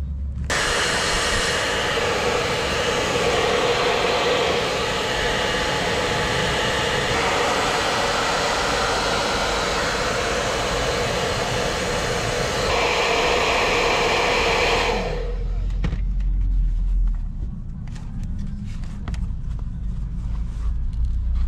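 Electric hot-air blower running steadily, heating the glue on a sneaker's upper and sole to reactivate it. It switches on about half a second in and cuts off suddenly about fifteen seconds in, leaving a low hum and a few light knocks.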